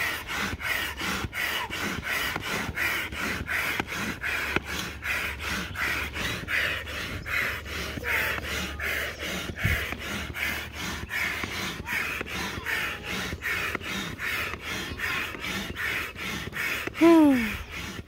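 Large stand-up hand air pump being worked up and down, each stroke forcing a whoosh of air through its hose into an inflatable kayak's side chamber in a quick, even rhythm. Near the end, a brief squeak that glides downward in pitch is the loudest sound.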